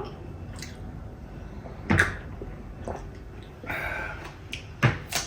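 Quiet eating sounds: a few short sharp clicks of dishes or utensils, about two seconds in and near the end, over a low background.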